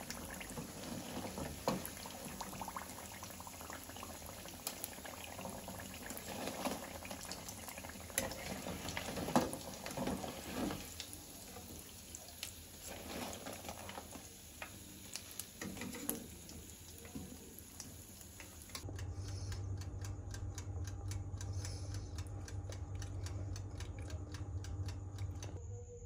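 Hot oil sizzling and bubbling as dough parcels deep-fry in a pan, with a few sharp clicks from the metal skimmer and strainer. About 19 s in it cuts to a steady low hum.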